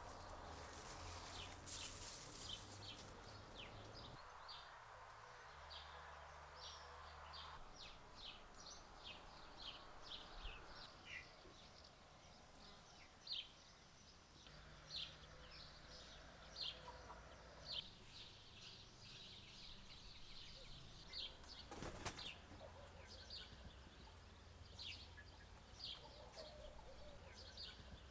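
Small birds chirping faintly outdoors: short high notes, often several a second, over a quiet steady background. A single sharp click about three quarters of the way through.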